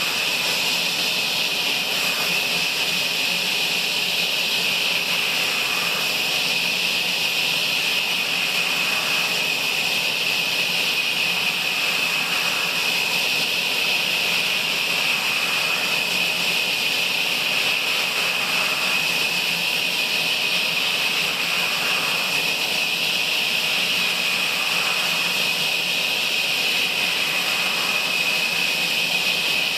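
Sawmill machine running, its saw cutting logs: a loud, steady, high-pitched machine noise that does not let up.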